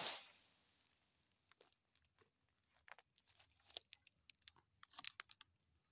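Faint crackling and rustling of dry oil palm fronds and leaf litter being disturbed: a brief rustle at the start, then scattered light clicks and crackles that come more often in the second half.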